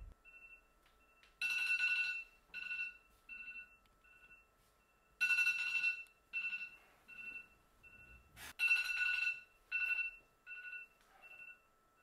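Phone alarm ringtone going off: a repeating electronic beep pattern in which each group starts with a loud beep and trails off in softer, fading repeats, coming round about every three and a half seconds. A single sharp click sounds about two-thirds of the way through.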